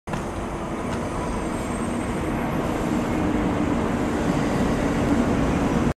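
Sanyo Shinkansen Nozomi train moving along the platform, a steady rushing of the train with a low hum that grows a little louder after about two and a half seconds.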